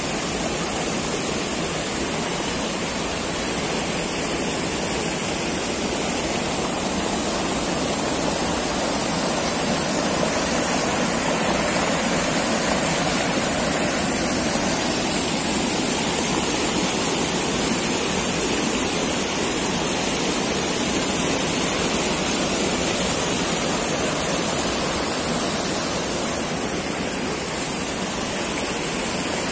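Shallow rocky forest stream rushing and splashing over and around boulders: a loud, steady rush of water.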